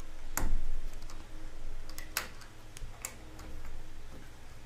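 Scattered clicks and light knocks of stiff electrical wires and plastic wire nuts being pushed back into a metal ceiling junction box, the sharpest about half a second in.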